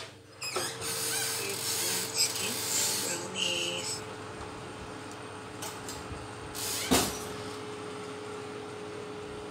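Built-in electric oven door being pulled open, followed by a few seconds of rushing noise and a single clunk about seven seconds in, over the oven fan's steady hum.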